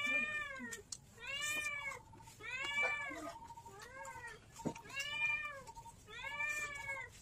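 A cat meowing over and over: about six meows, each rising and then falling in pitch, roughly a second apart.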